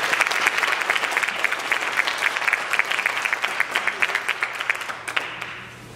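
Audience applauding: dense clapping from many hands that thins and dies away about five seconds in.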